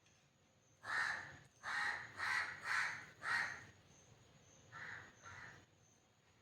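A crow cawing: five loud harsh caws in quick succession, then two fainter ones.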